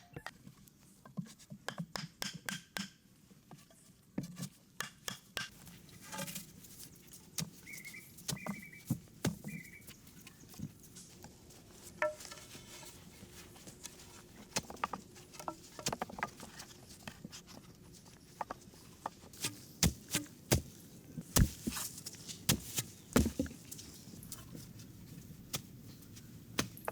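Irregular knocks, taps and clatter from hands-on building work, with the loudest knocks coming about twenty to twenty-four seconds in.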